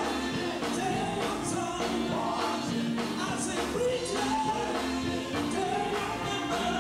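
Gospel group singing live with instrumental backing, voices holding long notes over a steady beat.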